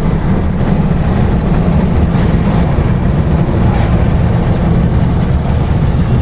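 Steady low rumble of a motor vehicle's engine and road noise, even and unbroken.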